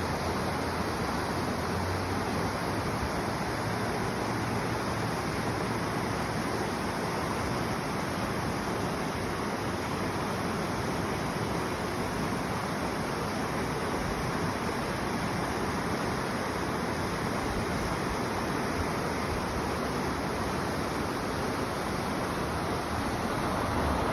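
Mountain river stream flowing: a steady, even rush of water.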